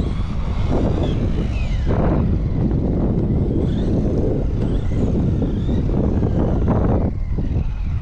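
Small brushless RC car driving fast on asphalt: the electric motor's high whine rises and falls in pitch as it accelerates and runs past, over a steady rush of tyre and wind noise.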